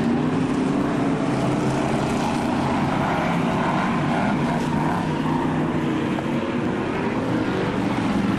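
Several F1 stock car engines running together in a steady, continuous drone as the cars race round the oval.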